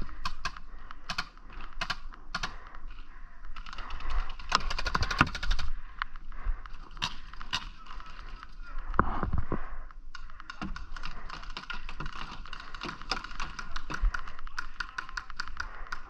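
Paintball fire: rapid strings of sharp pops and snaps, scattered at first, then in quick runs about four seconds in and again through the second half.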